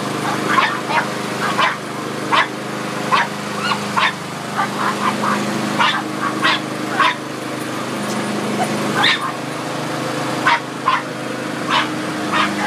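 Pug barking about a dozen times in short, sharp barks over the steady running of a lawn mower engine.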